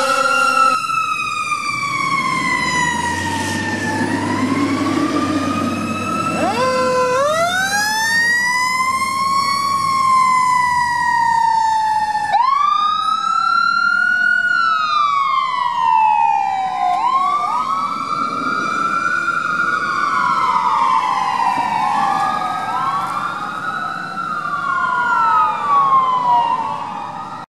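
Fire apparatus and ambulance electronic sirens wailing, each sweeping slowly up and down in pitch, with a steady horn note that stops under a second in. Toward the end two or more sirens overlap, wailing in quicker, staggered cycles.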